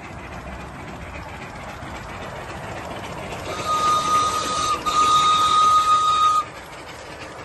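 A 5-inch gauge live steam locomotive's whistle blown for about three seconds: one high steady note with steam hiss, broken for an instant partway through, over the quieter sound of the engine running.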